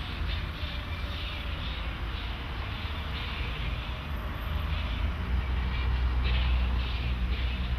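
Road traffic on a city street, a steady low rumble that swells about five seconds in as a vehicle passes.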